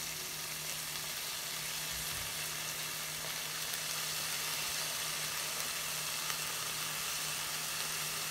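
Sliced onions and green capsicum sizzling steadily as they fry in oil in a stainless steel pan, with a low steady hum underneath.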